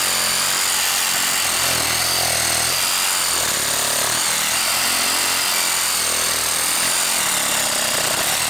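DeWalt Atomic 20-volt brushless compact reciprocating saw (DCS369) running steadily with a 12-inch Diablo pruning blade, sawing through a log.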